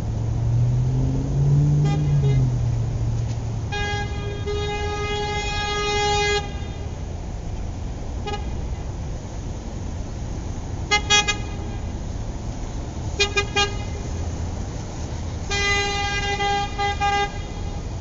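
Car horns honking in city street traffic over a steady low traffic rumble: a long honk, then a few quick double and triple taps, then another longer honk near the end.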